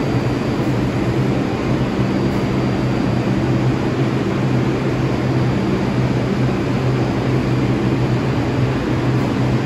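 R62 subway train standing at the platform with its doors open, giving off a steady low hum made of several steady tones.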